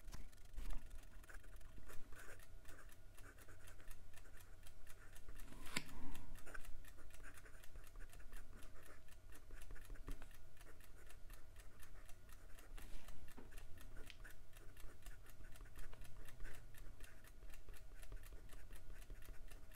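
Leonardo Momento Magico fountain pen's medium steel nib writing on notebook paper: a faint scratching of pen strokes with fine ticks as the nib touches down, and a sharper tap about six seconds in.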